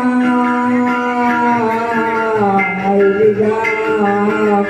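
A singer holding a long, ornamented sung note in traditional Lampung nyambai singing. The voice slides up into the note, holds it, then drifts down in small steps from about halfway through.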